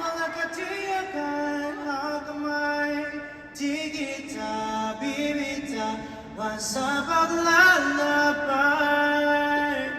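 A male singer sings a slow ballad in Filipino (Tagalog) through a concert sound system, with long held notes that slide between pitches.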